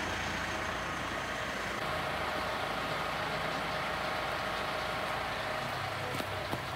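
A motor vehicle running: a steady engine hum with even road noise, and a couple of faint clicks near the end.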